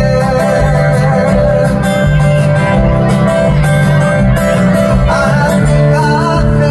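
Live band music: acoustic guitar strummed over bass and drums, with a man's voice singing from about five seconds in.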